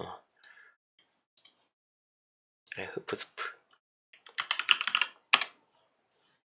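Typing on a computer keyboard: a few scattered keystrokes, then two quick runs of key clicks about three and five seconds in.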